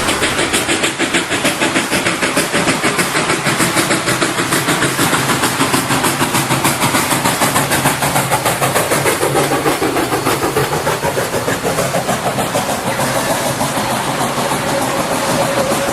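Steam locomotive puffing sound effect: quick, even exhaust chuffs repeating steadily.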